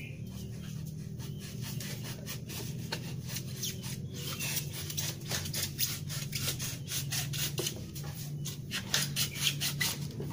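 Kitchen knife sawing through a piece of an old laundry washboard: a run of short scraping, rasping strokes as the blade works back and forth.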